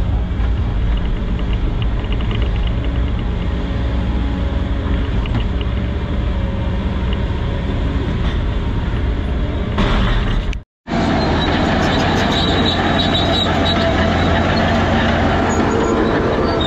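Volvo excavator's diesel engine and hydraulics running steadily, heard from inside the cab while it digs a trench. About 11 seconds in the sound cuts out for a moment, and a bulldozer's engine running takes over, with a higher whine added.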